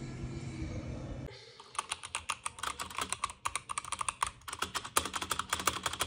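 Fast typing on a MageGee MK-Armor mechanical keyboard with red (linear) switches: a quick run of sharp key clacks, several a second. It starts about a second and a half in, after a low rumble cuts off.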